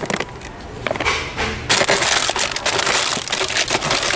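Foil blind bags crinkling and crackling as a hand rummages through a display box of them, growing loud and dense about a second and a half in.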